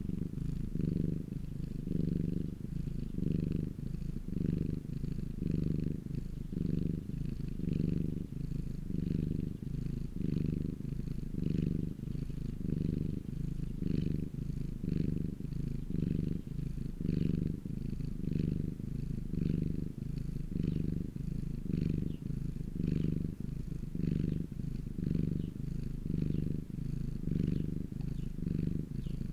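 Domestic cat purring steadily in even pulses, about one a second.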